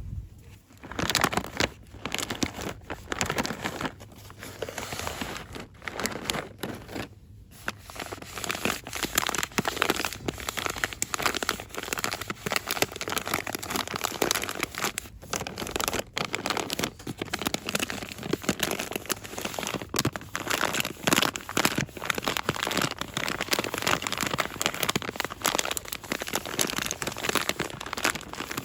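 Packaging being crinkled and rustled quickly and continuously by hand, a dense crackling that starts about a second in, with a short pause about seven seconds in.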